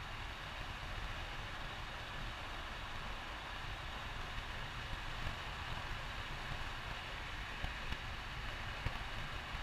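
Cabin noise of a VW Beetle 1303 cruising: the rear air-cooled flat-four engine's steady low rumble under an even road-and-wind hiss, with a few light clicks near the end.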